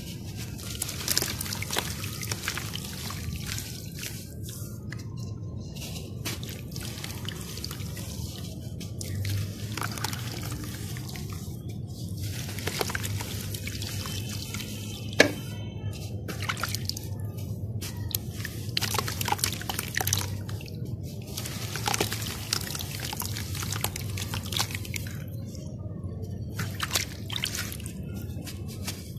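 Hands squeezing and crumbling balls of dry dirt-and-sand mix, a gritty crackle with wet bits dripping and plopping into a basin of water. One sharp click stands out about halfway through.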